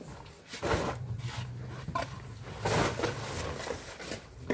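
Mason's trowel scraping mortar and a stone being set into it: a few short, rough scrapes and rubs.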